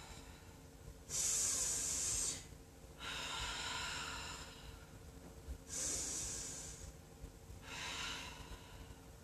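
Woman's deep, paced yoga breathing: four long audible breaths, each lasting one to two seconds.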